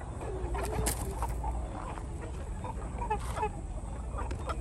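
A flock of gà nòi game chickens clucking: many short calls overlapping and scattered, over a steady low rumble.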